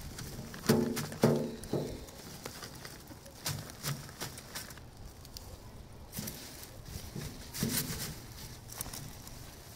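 Dry amaranth seed heads being rubbed and swept across a wire-mesh screen on a wooden frame, rustling and scraping as the seed is threshed out. Several sharp knocks with a brief ring come at irregular moments as the hand strikes the screen, in clusters near the start, around the middle and late on.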